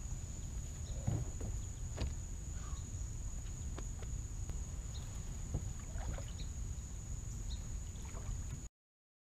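Scattered knocks and light water sounds from a kayak hull and from a man stepping off it into shallow lake water, over a steady high-pitched insect drone and a low rumble of wind on the microphone. The sound cuts off abruptly near the end.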